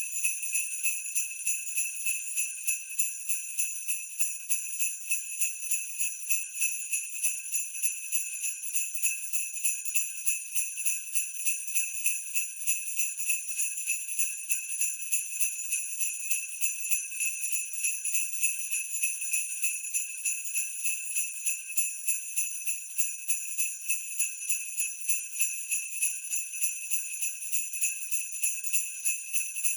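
Sleigh bells shaken in a steady, even loop at 90 beats a minute, a bright jingle with pulses several times a second.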